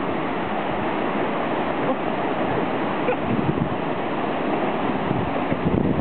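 Surf breaking and washing in over a sandy beach: a steady, even rush of waves.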